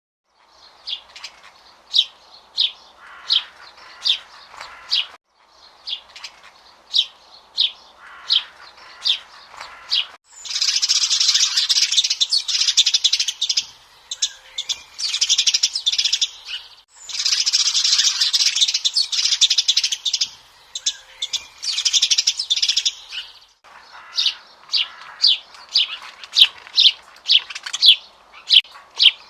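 Small birds chirping: sharp single chirps at about two a second, broken by several stretches of dense, continuous chattering song that start and stop abruptly.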